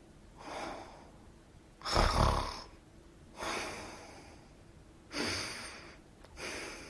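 A person snoring: noisy breaths about every second and a half, with two louder snores carrying a low rumble, about two and five seconds in.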